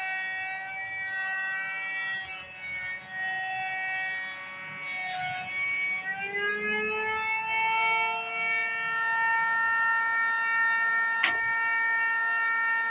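A homemade jointer's spinning planer cutterhead and motor give a whine whose pitch wavers and dips while rosewood is fed through it. About halfway, the pitch rises and settles into a steady whine as the cutterhead runs free. One sharp click sounds near the end.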